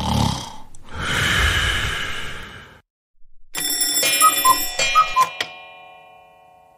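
Alarm clock sound effect: a bell ringing in two short bursts with a two-note chime, then fading away over a couple of seconds. Before it comes a loud noisy sound lasting a little over two seconds.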